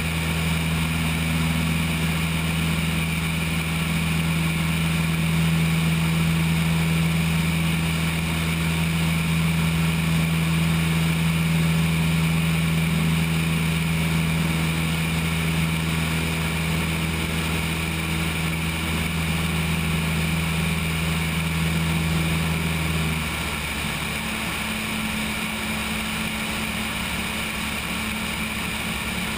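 Cessna 172 engine and propeller droning steadily in flight, with airflow rushing past the wing-mounted camera. About three quarters of the way through, the drone drops in level and its tone changes.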